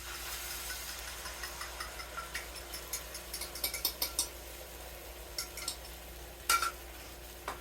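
Beaten eggs sizzling in a hot buttered skillet, with light clicks of a utensil against the bowl or pan and a sharper knock near the end.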